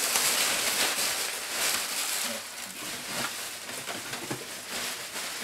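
Plastic bubble wrap rustling and crinkling as a large sheet is handled and pushed aside, busiest in the first couple of seconds and easing off after.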